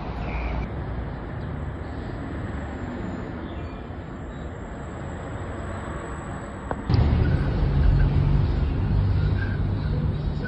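Steady background ambience with a low rumble, like distant traffic, that jumps suddenly louder about seven seconds in.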